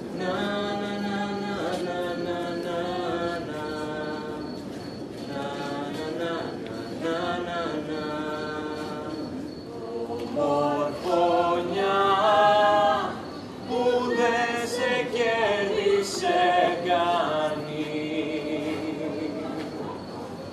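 Voices singing unaccompanied, a slow chant-like melody with long held notes that grows louder about halfway through.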